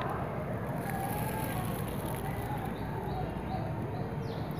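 Steady outdoor background hum typical of distant traffic, with a couple of short high falling chirps.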